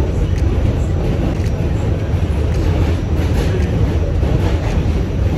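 Subway train running, heard from inside the car: a steady low rumble of wheels on the track.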